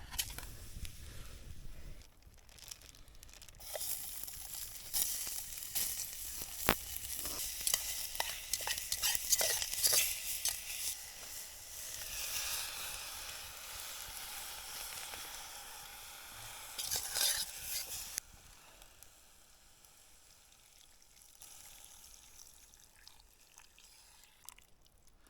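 Food sizzling in a small pot over a campfire, with the scrape and clicks of stirring. The sizzle starts a few seconds in and drops away a little past the middle, leaving only a faint hiss.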